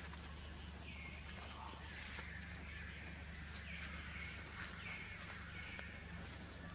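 A bird calling: a short whistle that slides down and levels off, repeated about five times at uneven gaps, over a low steady background hum.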